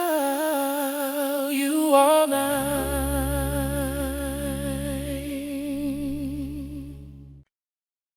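Soft pop music: a single long note with vibrato, hummed or sung without words, over a sustained low chord, stopping about seven seconds in at the end of the song.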